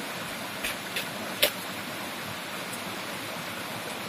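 Steady rushing of a nearby forest stream, with three short sharp clicks about a second in.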